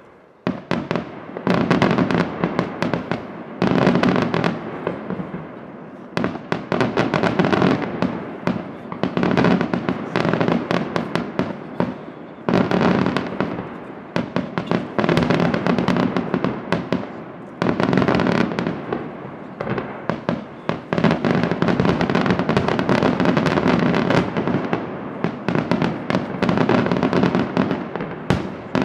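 Daytime fireworks barrage: a dense stream of rapid bangs and crackling explosions that starts about a second and a half in and comes in surging waves with short dips between.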